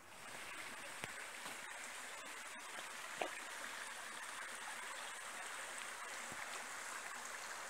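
Woodland brook flowing steadily: an even rushing of water, with a couple of faint clicks.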